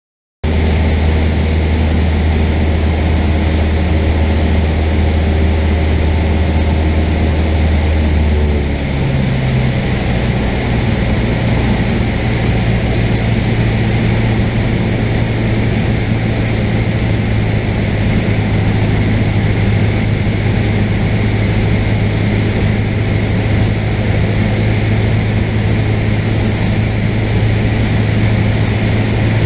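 Cessna 172's piston engine and propeller droning steadily, heard from inside the cabin. About nine seconds in, the engine note glides up to a higher pitch and then holds steady.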